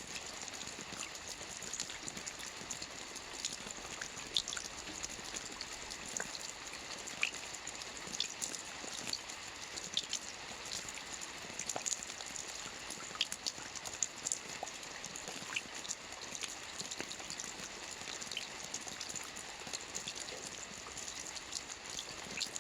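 Steady rain: an even hiss, with individual drops ticking sharply through it every second or so.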